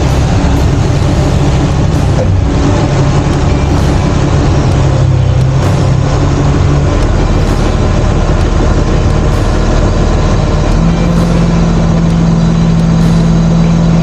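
Heavy diesel engine of a crane running loudly, its engine speed stepping down and up several times and rising to a higher steady pitch about three-quarters of the way through.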